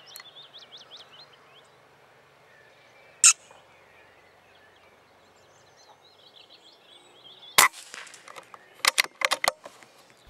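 Small birds chirping, with a sharp, shot-like crack about three seconds in and a louder crack about seven and a half seconds in, followed by a quick run of clicks and cracks.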